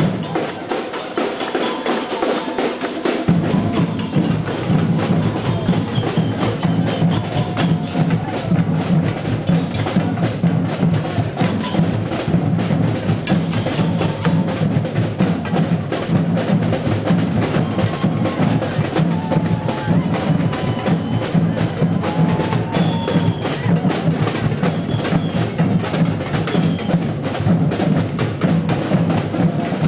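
Samba street percussion band drumming a steady, dense samba groove. The deep bass drums drop out for a few seconds near the start and come back in.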